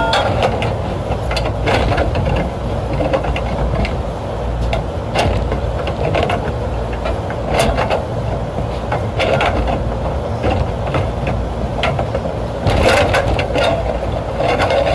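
Irregular clicks, knocks and rattles of hands working the metal parts and wiring of a rooftop condenser unit during a fan motor change, over a steady low rumble.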